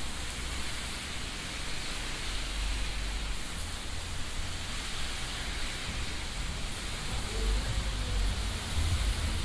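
Steady hiss of rain falling on an umbrella and the street, over a low rumble of city traffic that grows louder near the end.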